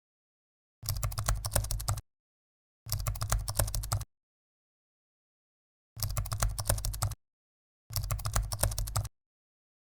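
Audience clapping in four short bursts of about a second each, with dead silence between them.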